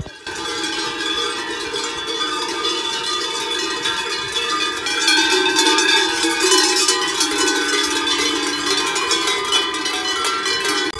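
Many cowbells on a herd of cattle ringing and clanging together at several different pitches as the cows move about. The bells have just been put on for the drive up to the summer alp pasture.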